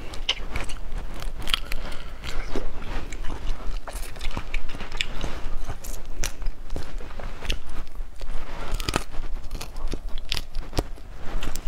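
Close-up eating of whole boiled crawfish: shells cracking and being peeled apart by hand, with chewing, as many irregular sharp crackles and clicks.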